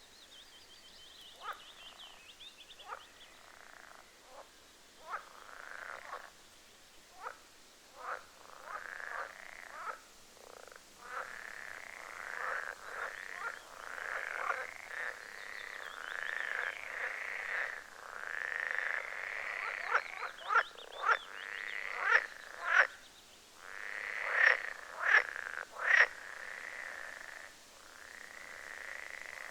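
A chorus of animal calls: short croaks and sharp clicks over a steady chirring, growing louder and denser from about eleven seconds in.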